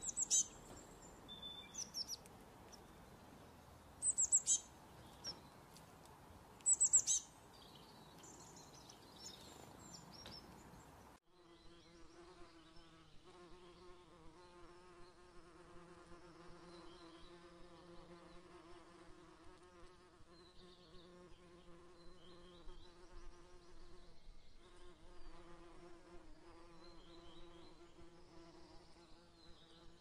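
High, sharp bird chirps come in three short bouts over the first ten seconds or so. Then, about eleven seconds in, a hovering insect's steady buzzing hum takes over, its wingbeat drone holding an even pitch, with faint bird chirps behind it.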